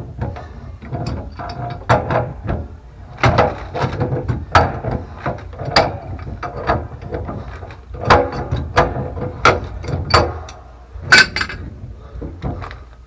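Irregular metallic clicks and knocks of a wrench working at a seized threaded pipe fitting on a water pump, to loosen a joint that has not been undone in years.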